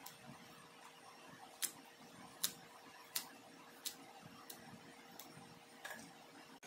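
A knife cutting through crisp taro flower stalks by hand, with the pieces dropping onto a steel plate: about eight sharp clicks, roughly one every three-quarters of a second.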